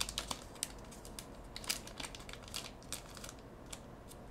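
Trading card booster pack's foil wrapper crinkling in the hands, a string of short, irregular crackles.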